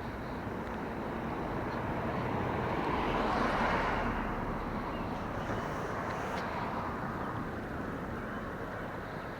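A vehicle passing by, its noise swelling to a peak about three to four seconds in and then fading.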